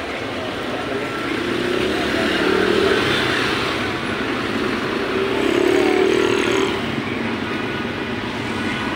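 Street traffic: a steady hum of road noise, with the engines of passing vehicles swelling louder twice, a couple of seconds in and again about six seconds in.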